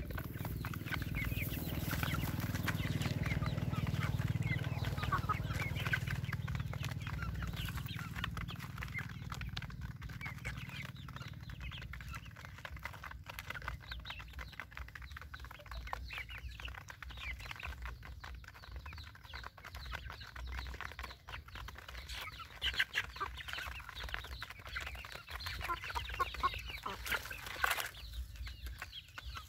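A flock of young chickens clucking while pecking grain from a metal pan, with many quick, irregular clicks of beaks on the feed and pan. A low rumble in the first several seconds fades away.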